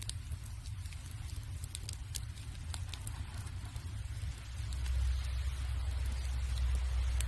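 Burning firewood crackling, with scattered sharp pops. A low rumble underneath grows louder about halfway through.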